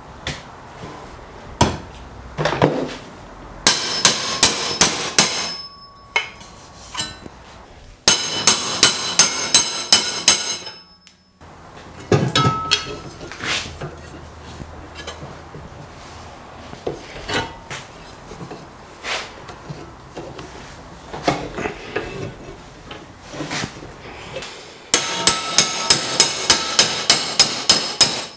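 A hammer tapping an aluminium baffle strip clamped in a bench vise, in three runs of quick, even blows about four a second, each blow with a metallic ring. Between the runs the metal and the vise are handled, knocked and rubbed.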